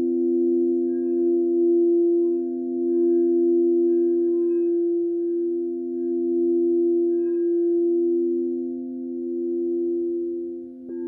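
Several frosted quartz crystal singing bowls sound together as overlapping steady tones, played with mallets, their sound swelling and fading in slow waves. Just before the end a new, higher tone joins in.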